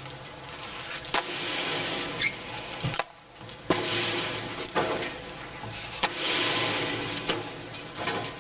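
Tree-cutting machinery at work: steady noisy machine sound with sharp knocks and cracks of wood, breaking off and changing abruptly several times.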